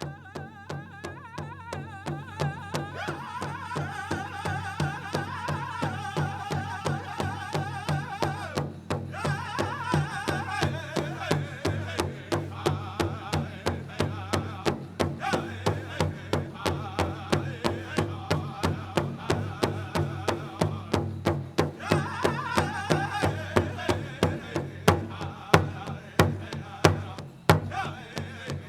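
Pow wow drum group singing a prairie chicken dance song in high voices while beating a steady pulse of about three strokes a second on a shared drum. The song phrases break off briefly twice, and a few beats near the end are struck harder.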